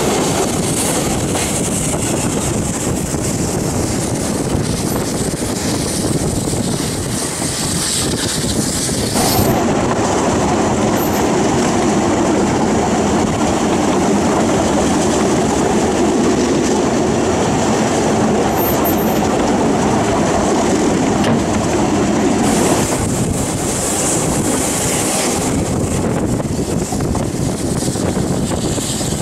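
Narrow-gauge steam train with NG/G16 Garratt locomotives hauling passenger coaches, heard running at speed: steady wheel and running noise over the track. The sound changes abruptly about nine seconds in and again a few seconds before the end as the shot changes.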